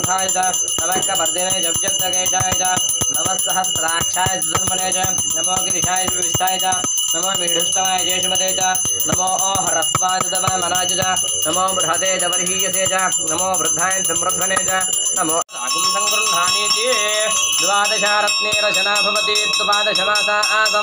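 Puja hand bell rung without pause, its high ringing tones steady, with a voice chanting along. About fifteen seconds in the sound breaks off for an instant and resumes with a different set of bell tones.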